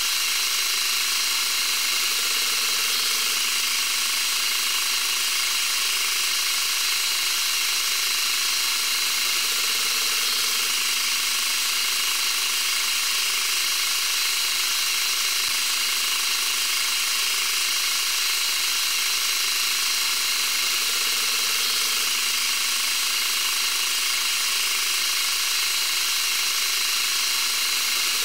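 Manual metal lathe running under automatic carriage feed while cutting a steel taper: a steady, even machine noise that does not change.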